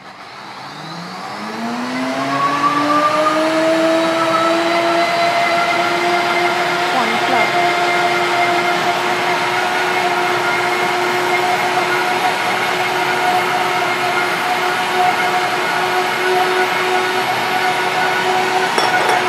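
Countertop blender motor spinning up, its whine rising over the first two or three seconds, then running steadily at full speed as it purées blanched broccoli and spinach with milk.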